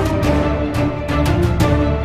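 Background music with held notes over a steady drum beat.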